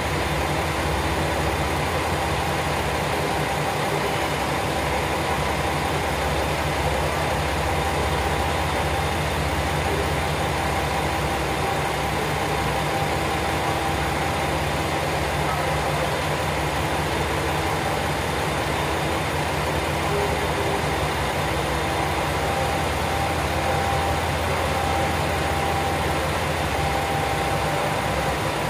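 Diesel railcar engines idling steadily, a low even throb.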